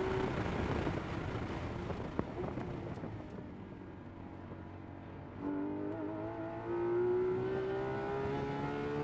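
Porsche 911 GT3 RS's naturally aspirated 4.0-litre flat-six heard from inside the cabin at a track. The engine note drops away as the car brakes hard and downshifts from fifth to third, leaving wind and tyre noise with a sharp crack about two seconds in. The engine comes back in about five and a half seconds in and climbs steadily in pitch at full throttle in third gear.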